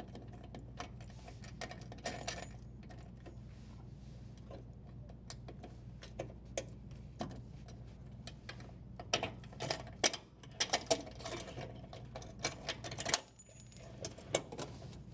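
Irregular small clicks and light metallic and plastic rattles, busiest in the second half, as a flathead screwdriver unthreads a dishwasher's strain relief nut and the power cable is pulled free of the junction box.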